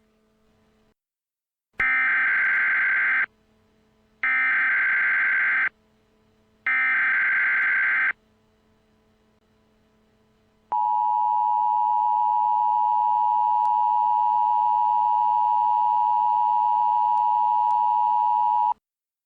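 Emergency Alert System header: three bursts of warbling SAME digital data, each about a second and a half long with short silent gaps, followed by a steady attention tone held for about eight seconds. Together they signal that an emergency alert broadcast is about to begin.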